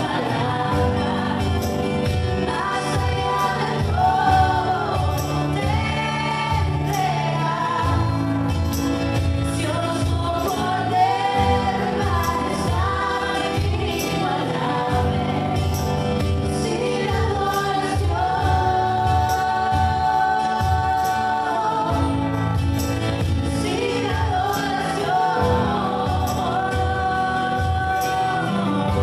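Live worship band playing a Spanish-language worship song: singers over two acoustic guitars, a cajón and a keyboard.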